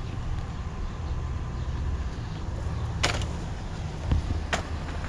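A vehicle engine running steadily with a low rumble, with a couple of sharp clicks and a dull knock in the last two seconds.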